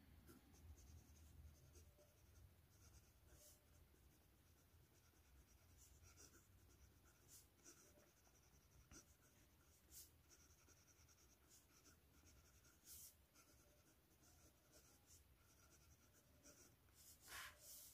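Faint scratching of a broad Syahi steel fountain-pen nib writing a line of words on cheap photocopier paper, in short irregular strokes. It is a very wet nib with very little feedback.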